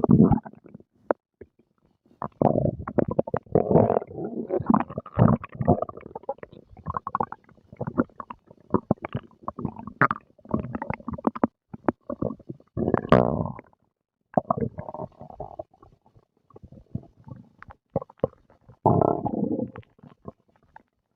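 A person's stomach growling and gurgling while digesting breakfast. Irregular bursts of gurgles come and go, some with short rising or falling pitch, broken by a few brief lulls.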